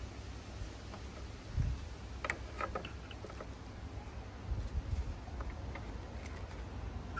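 Light plastic clicks and taps as a dust-extraction adapter is fitted onto the blade guard of a DeWalt circular saw, a cluster of them a couple of seconds in, with a few dull handling thumps over a low rumble.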